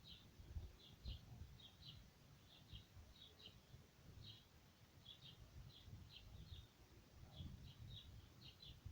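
Faint bird chirping: short, high notes, mostly in quick twos and threes, repeating about every half second over a low, unsteady rumble.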